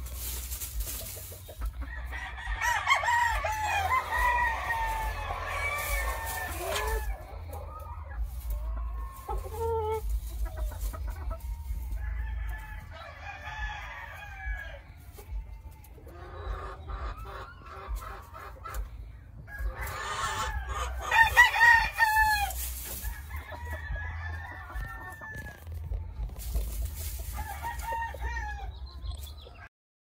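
Many gamefowl roosters crowing over one another, with clucking between the crows, in bouts every several seconds; the loudest bout comes about two-thirds of the way through. A steady low rumble runs underneath.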